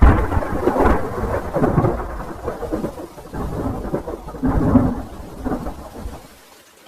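Thunder rumbling with rain, loudest right at the start, rolling in uneven swells and dying away near the end.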